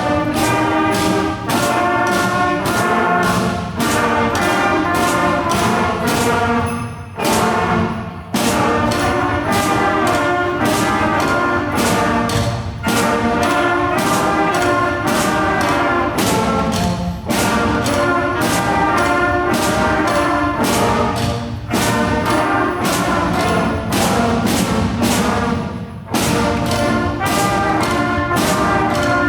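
Student band playing a piece with brass instruments, with regular drum hits keeping the beat.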